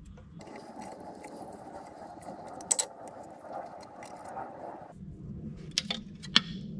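Scattered light metal clinks and scrapes as loose steel parts are handled down inside an open pump-jack gearbox, with a couple of sharper clinks near the middle and a few more near the end, over a steady background noise that drops to a low hum about five seconds in.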